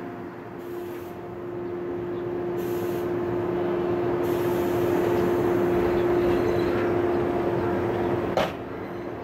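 Local electric train standing at a station platform, its onboard equipment giving a steady hum that swells through the middle. A single sharp, short sound comes about eight seconds in, and the hum stops just after it.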